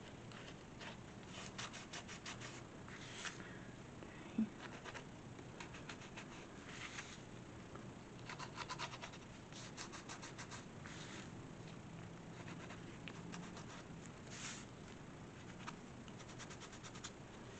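Black marker scratching across a textured paper journal page in repeated runs of quick short strokes, faint throughout. One short louder tap about four and a half seconds in.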